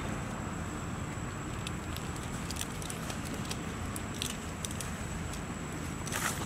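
Outdoor ambience: a steady low rumble with scattered small clicks and crackles, a denser run of clicks about six seconds in.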